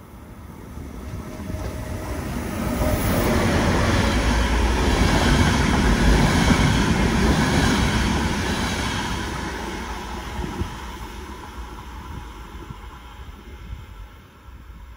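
Double-deck regional train passing through a station without stopping: a steady rumble of wheels on the rails that swells over about four seconds, stays loud for several seconds, then fades away.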